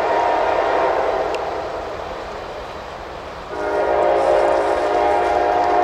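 Locomotive air horn of the CSX office car special train sounding a chord: one long blast fades away over the first two seconds, and a second long blast starts about three and a half seconds in.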